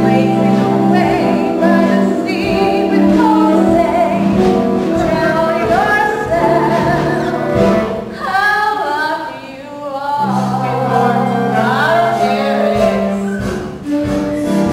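A show tune from a stage musical: singing over band accompaniment with steady held bass notes, the accompaniment briefly dropping away about halfway through while a voice slides up and down.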